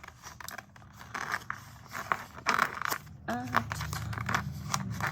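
Sticker sheets and paper being handled at a desk: light rustling, crinkling and small taps, with a brief murmured voice about three seconds in.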